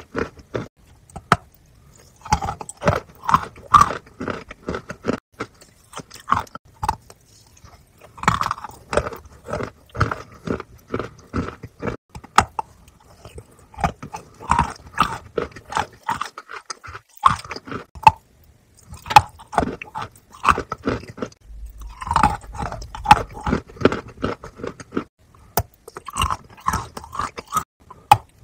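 Close-miked eating sounds: a woman biting into and chewing chocolate-coated bars, with crackling bites through the chocolate coating and wet mouth chewing. The sounds come in bursts with brief pauses.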